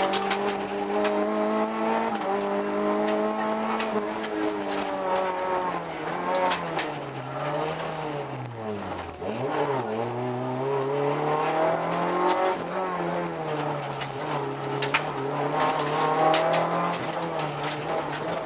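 Rally car engine heard from inside the cabin, running hard and changing pitch with the gear changes; about halfway through the revs drop sharply and then climb back up, as for braking into a corner. Frequent short clicks sound over it.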